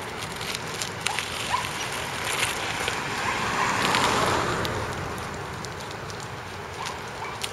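Wind rushing over the microphone of a moving bicycle, with scattered rattling clicks from the bike. A car passes, its tyre noise swelling to a peak about four seconds in and then fading.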